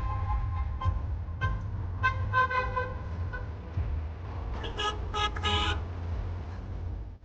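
Vehicle horns honking in traffic: a string of short toots in the first three seconds, then three quick, brighter beeps about five seconds in, over the steady low rumble of the car driving.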